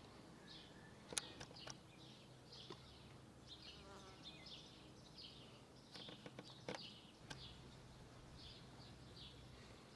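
Faint outdoor ambience of small birds chirping in short repeated calls, with a sharp click about a second in and a few more clicks around six to seven seconds in.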